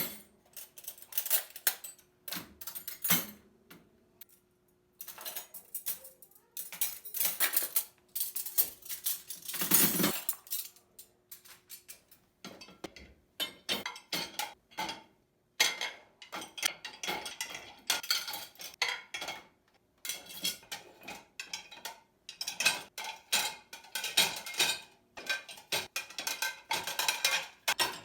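Dishes and cutlery clinking and clattering as they are handled, in quick irregular knocks with short pauses between runs.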